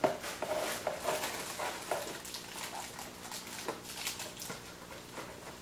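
Light clicks and rustling of packaging and small items being handled during unboxing, with a faint steady hum underneath.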